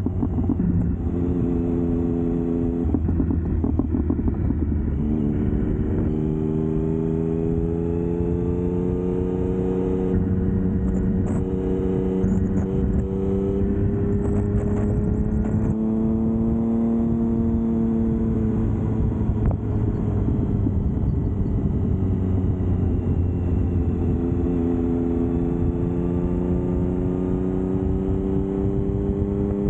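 Triumph Speed Triple's three-cylinder engine running under way, its pitch slowly rising and falling as engine speed changes.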